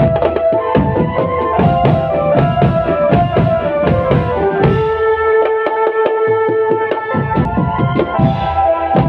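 Marching drum band playing: rapid drum beats under a melody of held notes that steps from pitch to pitch.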